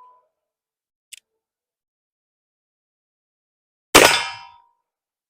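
A loud metallic clang about four seconds in, ringing out and dying away within about half a second, typical of a steel target struck. A like clang is fading at the start, and a faint short tick comes about a second in.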